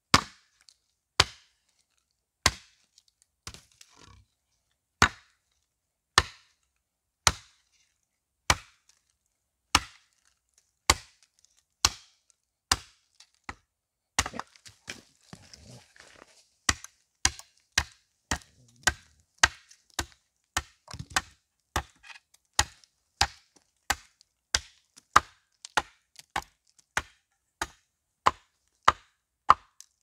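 Hatchet chopping the end of a wooden stake to a point on a tree-stump chopping block: sharp, separate blows, about one a second at first, quickening to nearly two a second in the second half.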